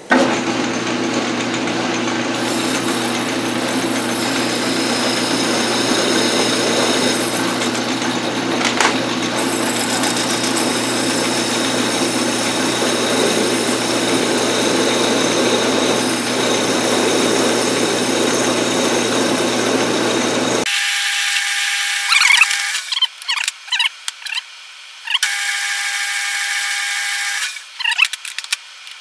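Metal lathe running while a parting tool cuts off the turned arbor, a steady machining sound with several steady tones. About twenty seconds in it stops abruptly, followed by a few short, scattered clatters.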